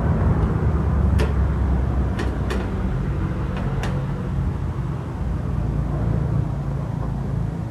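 Diesel engine converted to run on petrol, running steadily on a motorcycle. Several sharp clicks or knocks cut through about one to four seconds in. The owner says this engine still often detonates.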